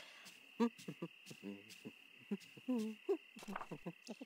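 A small puppet character's voice humming to itself in a string of short, bobbing notes, over a steady high thin background tone.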